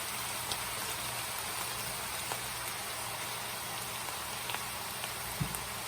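Food sizzling steadily in a frying pan, with faint scattered crackles and a soft knock near the end.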